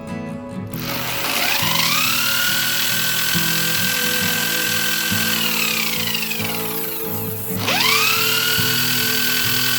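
A small high-speed electric motor starts about a second in, whining up in pitch to a steady run with a hiss. It slows with a falling whine from about the middle, then starts again near the end and quickly whines back up to speed. Acoustic guitar music plays underneath.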